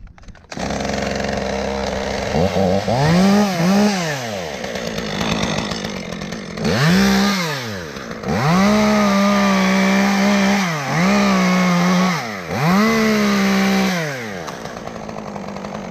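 Chainsaw revved up to full throttle and eased off again about six times in quick succession, cutting through a tree limb, then settling back to idle near the end.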